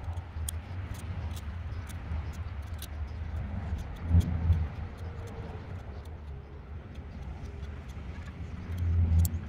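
A folding knife shaves bark and wood from a slim durian seedling stem, giving faint, sharp, irregular ticks. A low rumble runs underneath and swells about four seconds in and again near the end.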